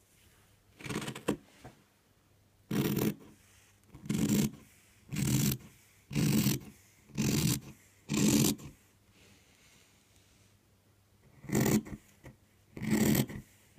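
Fabric shears cutting through layers of cotton fabric, a crunching snip about once a second, then a pause of a few seconds before two more cuts.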